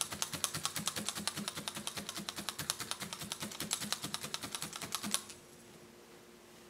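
Multi-needle felting punch tool jabbed rapidly and repeatedly through wool into a burlap-covered felting pad, a fast even run of soft clicks, several a second. It stops about five seconds in.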